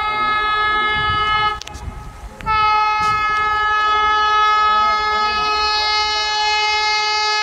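Horn of the approaching Vande Bharat Express sounding in long, steady blasts. One blast breaks off under two seconds in, and after a short pause a second long blast starts and holds on.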